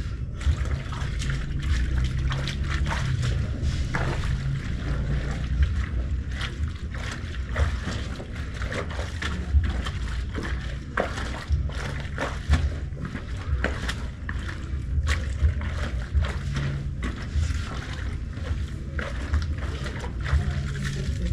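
Clothes being washed by hand in a basin: water sloshing and splashing, with irregular knocks and clicks throughout.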